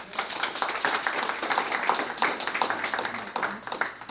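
A small audience applauding, a dense patter of many hands clapping that thins out near the end.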